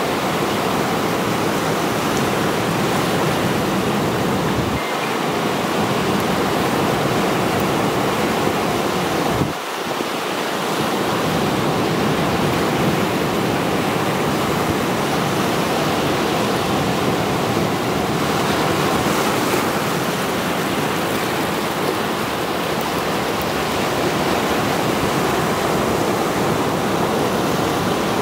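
Mediterranean surf: rows of waves breaking and washing over a rocky shore, a steady rushing sound that dips briefly about ten seconds in.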